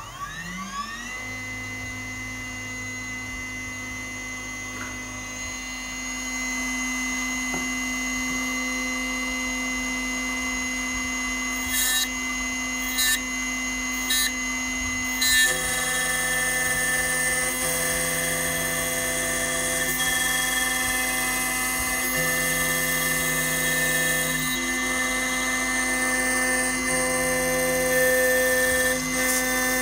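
Small CNC milling machine's spindle spinning up with a rising whine, then running at a steady high whine. From about halfway it sounds coarser and hissier, with three short bursts of noise just before, as it engages to mill away an iPhone A10 chip.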